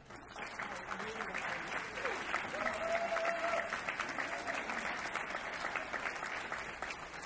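Audience applauding, building over the first couple of seconds and tapering off near the end.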